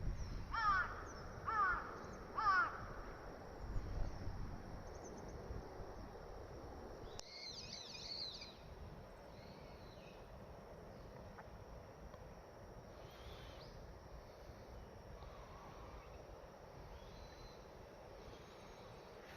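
Wild birds calling: three loud calls about a second apart near the start, then a brief high twittering about seven seconds in and a few faint calls later, over a low background rumble.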